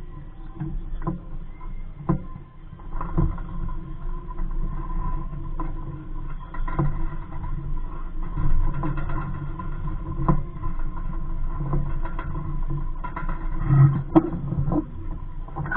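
Wind rumbling on the microphone of a small sailboat, with water slapping the hull and scattered knocks from the boat, one sharper knock near the end.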